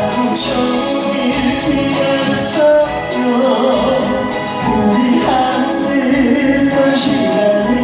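Singing over musical accompaniment, a voice carrying a held, wavering melody.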